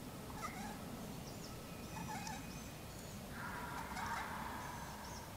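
Wild turkey gobbler gobbling: one full rattling gobble about three and a half seconds in, lasting about a second, with shorter gobble-like calls earlier. Small songbirds chirp briefly.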